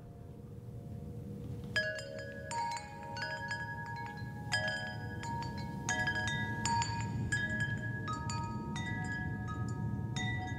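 Metal tubular wind chime ringing, its tubes striking in irregular clusters from about two seconds in, each strike leaving a clear, lingering tone. A low, steady background noise underneath slowly grows louder.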